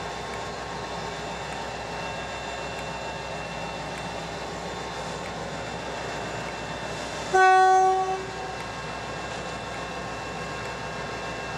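A diesel locomotive's horn gives one short blast on a single steady note about seven seconds in, over the steady running of an idling diesel locomotive at the platform.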